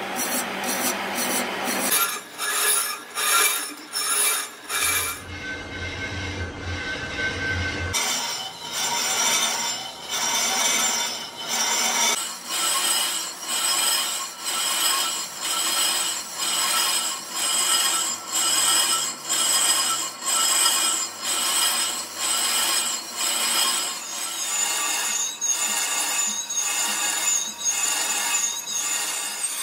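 Lathe boring bar cutting the inside of a cast iron truck brake drum as it turns: a scraping, rasping cut with high ringing tones, pulsing a little more than once a second. The sound changes abruptly a few times in the first dozen seconds.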